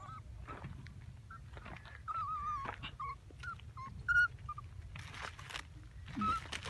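A small puppy whimpering: many short, thin, wavering high whines, one after another, the distress cries of a puppy trapped in a pit and trying to climb out. There is a sudden louder sound about four seconds in and a brief rustle about five seconds in.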